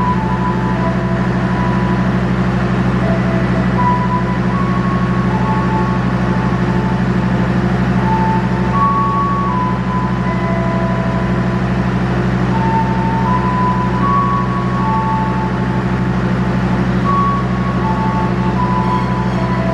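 Steady, loud drone of an idling diesel passenger train at the station, with a simple tune of single high notes, one after another, playing over it.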